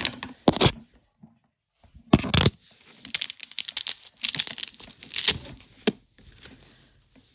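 Toy packaging being torn and crinkled by hand in irregular bursts with short pauses, the loudest rip about two seconds in.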